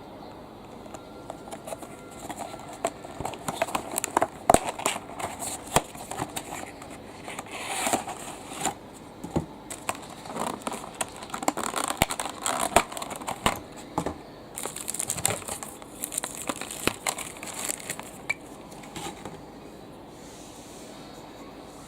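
Packaging crinkling and crackling as it is handled, with many sharp clicks and taps; the handling stops near the end, leaving a faint steady hiss.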